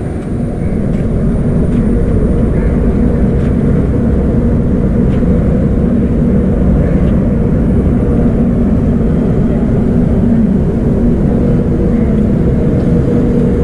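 Steady loud drone of a stationary electric train's running machinery, with a constant low hum.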